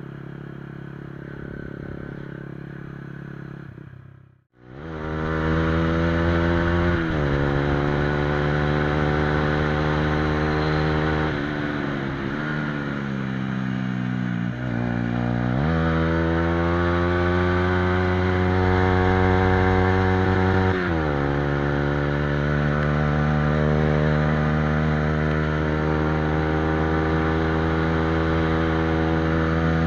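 Honda CBR125R's single-cylinder four-stroke engine running through a replica Akrapovic exhaust while the bike is ridden hard through the gears. The note rises under throttle and drops sharply at each upshift, with one stretch where it falls away as the bike slows. A short dropout about four seconds in, after which the engine is much louder.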